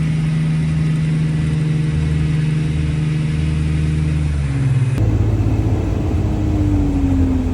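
Outboard motor running steadily on a boat under way. Its pitch drops a little about four and a half seconds in, and after a sudden change about five seconds in, it runs on with a slowly falling tone.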